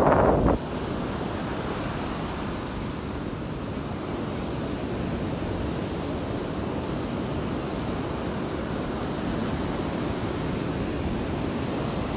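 Surf washing on a Gulf beach, a steady rushing noise mixed with wind on the microphone. There is a brief louder burst right at the start.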